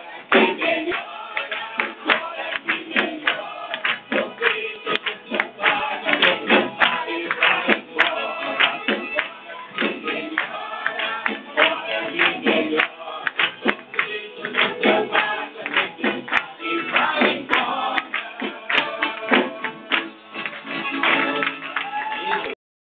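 Live band music with electric guitar, with people singing along and clapping their hands. The sound cuts off suddenly near the end.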